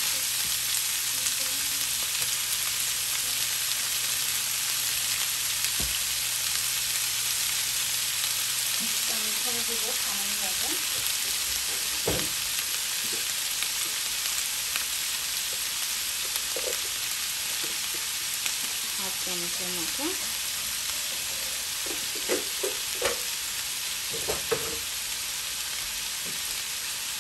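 Bottle-gourd skin strips, green peas and broccoli frying in a pan, with a steady sizzle and a few sharp clicks, most of them near the end.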